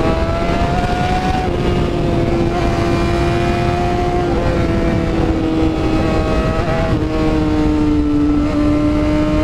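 Honda CBR 600RR's inline-four, straight-piped, running at a steady highway cruise; the engine note holds almost level, shifting slightly in pitch a few times as the throttle eases and opens, over wind rush on the microphone.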